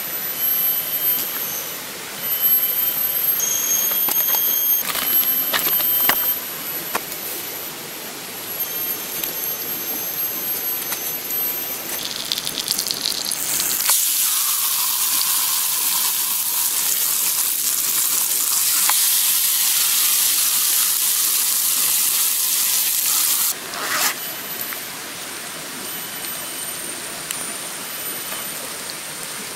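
Mackerel fillet frying in hot oil in a cast-iron skillet over a campfire: a loud steady sizzle that starts suddenly about halfway through and cuts off abruptly some nine seconds later. Around it is the steady rush of a flowing stream, with a few handling clicks early on.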